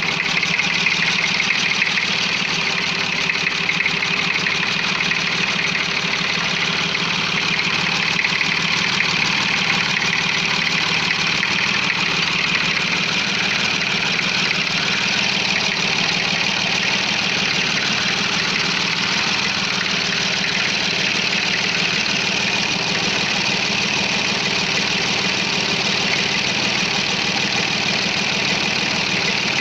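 Perkins three-cylinder diesel engine idling steadily while it warms up.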